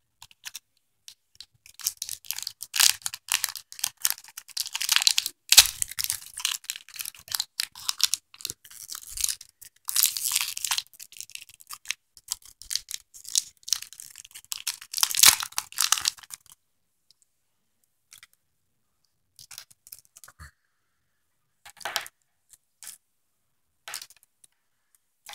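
Thin clear plastic earphone packaging crackling and crinkling as the white in-ear earphones are pried and pulled out of it: a dense run of sharp crackles for about fifteen seconds, then only a few scattered light clicks.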